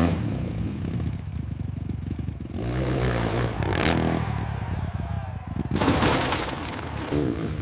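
A dirt bike engine revving, its pitch rising and falling.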